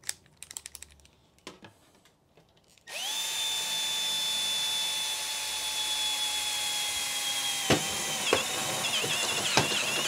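Cordless drill with a step drill bit making a starter hole in sheet metal. A few light clicks, then about three seconds in the drill starts and runs with a steady whine. From a little before eight seconds the pitch dips and wavers as the bit cuts into the metal.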